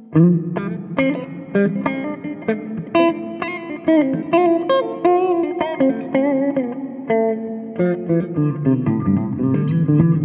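Epiphone Les Paul Classic Worn electric guitar played with a clean tone. It opens with a strong plucked attack, then runs through a line of picked single notes and chords that ring on, with a few held notes wavering in pitch.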